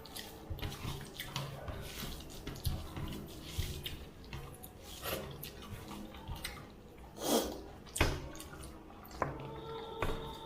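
Close-up eating sounds of rice and fish curry: wet squelching and smacking, with scattered small clicks. There is a louder wet sound about seven seconds in.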